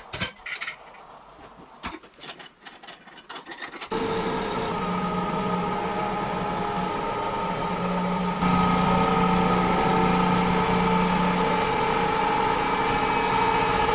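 A few clicks and clunks of the block being swapped over in its fixture. Then a deck surfacing machine runs steadily with a humming whine as its cutter head passes across the deck of a cast-iron GM small-block V8, milling it flat. The sound gets louder a little past 8 seconds in.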